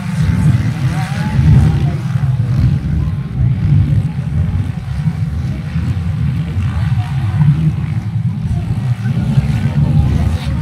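Distant off-road motorcycles racing round an enduro dirt track, their engine noise heard under a loud, choppy low rumble.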